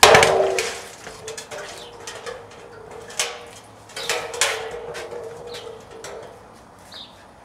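Steel keg partly filled with water set down hard on a driveway: a loud metallic clang, then a steady ringing tone that fades slowly over several seconds, with a few lighter knocks around three and four seconds in.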